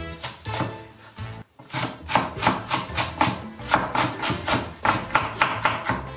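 Knife chopping leek finely on a wooden cutting board: rapid, even knocks of the blade on the board, about four or five a second, with a short pause about a second and a half in. Background music plays underneath.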